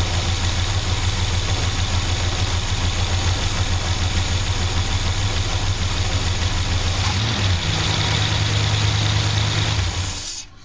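1964 Chrysler Windsor's 361 wedge big-block V8 idling steadily with a valve cover off and the rocker arms exposed. Its note shifts about seven seconds in, and the sound drops away abruptly near the end.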